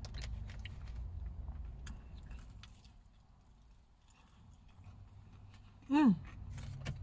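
A person chewing and biting fried chicken with closed-mouth chewing noises and small mouth clicks. About six seconds in, a short, loud hummed "mm" falls in pitch.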